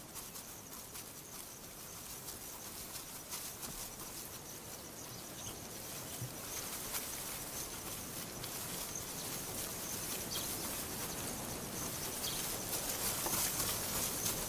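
Grassland ambience: a steady hiss of outdoor air with a thin, high, steady insect tone and scattered faint ticks, slowly growing louder.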